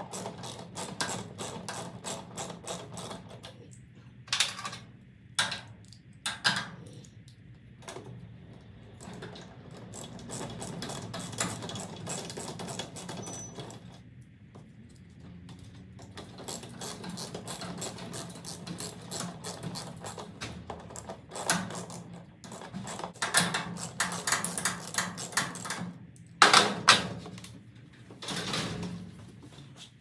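Socket ratchet wrench clicking in quick runs as screws are driven into a garage door opener rail's wall bracket, with short pauses between runs.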